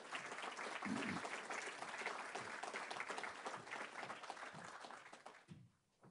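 Audience applauding, a dense patter of many hands clapping that stops fairly suddenly about five and a half seconds in.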